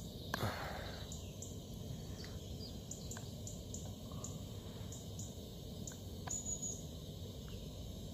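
Quiet outdoor background: a low steady rumble with scattered short, high bird chirps and one longer high call about six seconds in. A brief rustle comes near the start.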